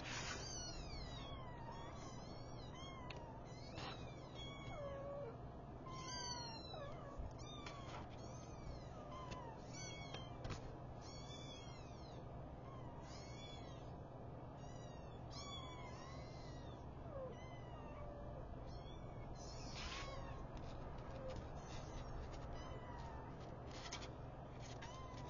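Young kittens mewing: short, high-pitched mews, each rising then falling in pitch, about once a second and at times in quick pairs, over a steady low hum.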